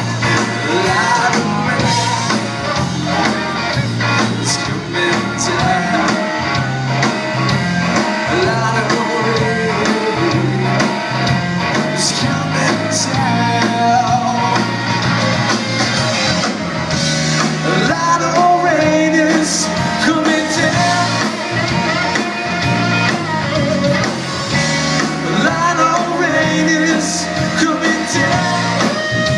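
Live blues-rock band playing: electric guitar, bass and drums, with a singing voice.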